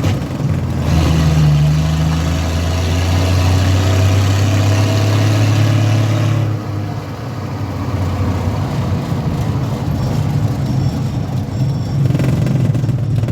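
Schlüter Super 1250 VL tractor's diesel engine running, loud and steady, easing off somewhat about halfway through and picking up again near the end.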